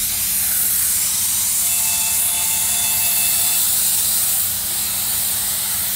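Compressed-air spray gun spraying activator onto hydrographic film floating in the dip tank: a steady hiss that starts suddenly just before and holds level throughout.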